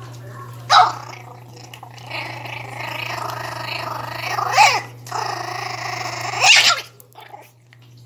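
Miniature pinscher puppy growling over its food bowl, guarding its food from a hand reaching in. A long growl is broken by three loud, sharp barks: about a second in, midway, and near the end.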